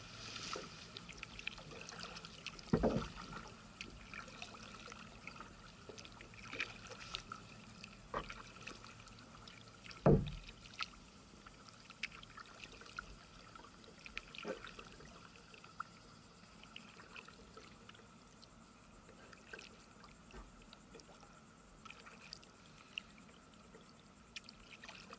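Kayak paddling on calm water: the paddle dipping and water dripping and trickling off the blade in small scattered splashes, with two louder dull knocks, about 3 seconds and 10 seconds in.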